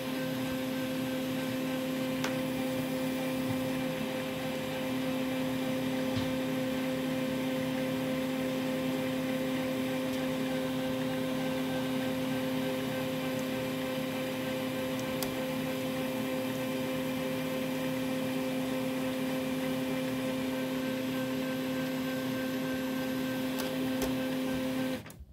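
Fuji Xerox DocuPrint P205b laser printer running its Clean Developer cleaning cycle: a steady motor hum while its internals spin, cutting off suddenly near the end as the cycle finishes.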